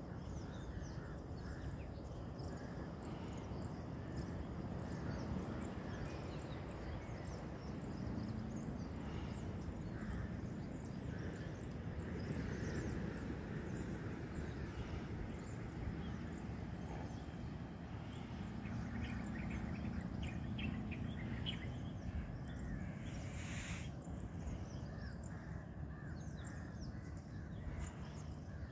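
Outdoor beach ambience: many short bird calls scattered throughout over a steady low rumble, with one brief rushing noise a little before the end.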